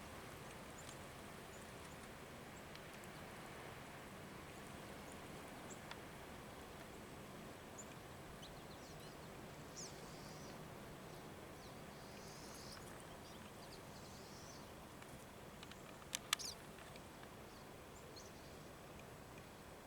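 Faint outdoor background noise with scattered short, high chirps, and two sharp clicks a little after sixteen seconds in.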